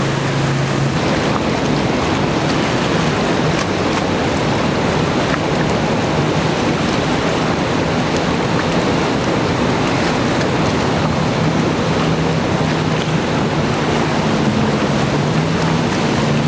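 River jet boat running up through a whitewater rapid at speed: a loud, steady rush of churning water and spray. The engine's pitched note is plain at the start, fades under the water noise, and comes back near the end.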